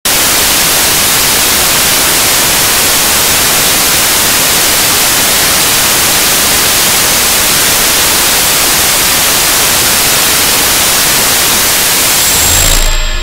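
Loud, steady static hiss, even from low to high pitches, that cuts in suddenly and cuts off suddenly. A thin high whistle and a low hum appear briefly near the end.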